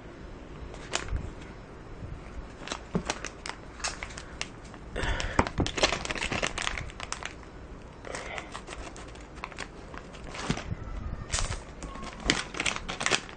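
A plastic LEGO minifigure blind bag being torn open and handled by hand, crinkling and rustling in irregular bursts with sharp crackles.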